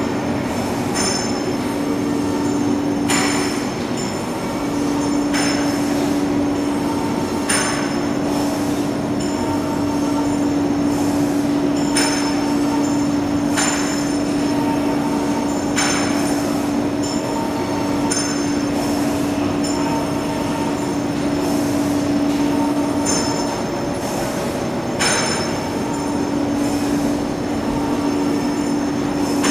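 Industrial machinery in a tube-drawing plant running: a steady hum, briefly dropping out twice, under a thin high whine, with a short sharp clank or hiss every two to four seconds.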